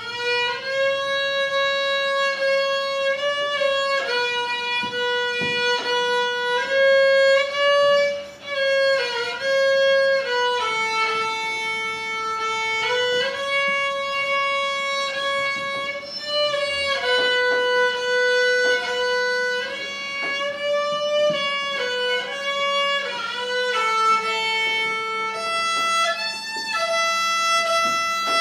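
Solo violin played by a young girl: a slow melody of long held notes, one note at a time, starting right at the beginning.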